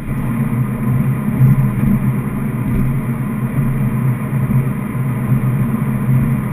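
Car engine running at a steady cruise with tyre and road noise, heard from inside the cabin.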